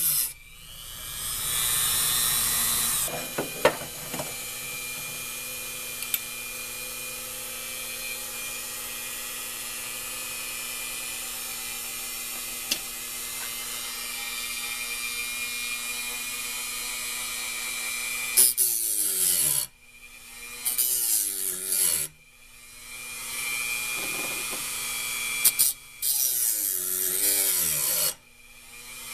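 Dremel rotary tool running steadily with a small grinding stone, grinding the teeth of a steel hole saw in bursts of gritty grinding, early on and again in the second half. In the second half the motor's pitch falls away as it slows, and it briefly stops more than once before starting again.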